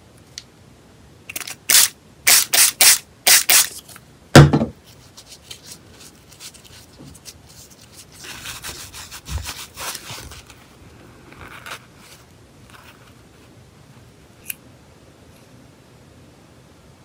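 A hand-pumped spray bottle of disinfectant spritzed about six times in quick succession onto a paper towel, followed by a loud thump. Then the paper towel rustles and rubs as the rhinestones are wiped clean.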